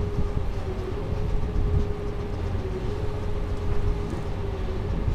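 The boat's engine running steadily: a continuous low rumble with a constant mid-pitched whine above it that wavers slightly.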